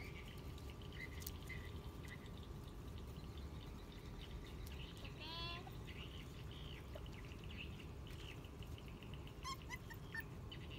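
Young puppies whining: one clear rising-and-falling whine about halfway through, with faint short squeaks scattered around it, over a steady low background hum.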